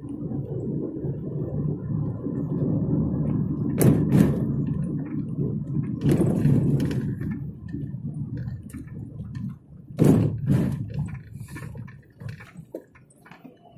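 Low, steady rumble of a car's engine and tyres heard from inside the cabin while driving, with a few sharp knocks along the way; it goes quieter near the end.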